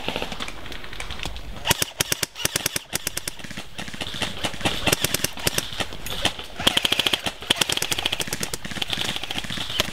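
Airsoft rifles firing in rapid full-auto bursts, a fast run of sharp clicks with short pauses between bursts; the densest burst comes a little under seven seconds in.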